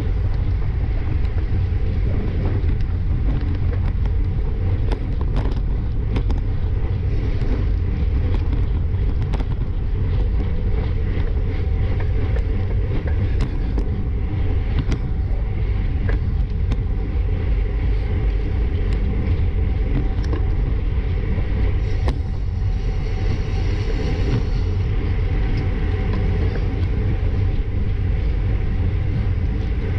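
Steady wind rush buffeting an action camera's microphone while riding in a bicycle pack at about 22 mph, with tyre hum and scattered light clicks.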